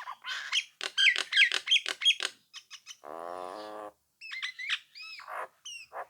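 Nias hill myna calling in a varied, chattering run: sharp clicks and quick bent whistles, a harsh nasal buzz lasting about a second roughly halfway through, then more clear whistled notes that rise and fall.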